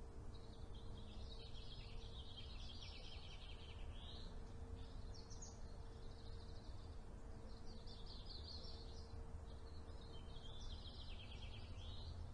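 A songbird singing long, warbling, trilling phrases, about four of them with short gaps between, over a low steady rumble of background noise.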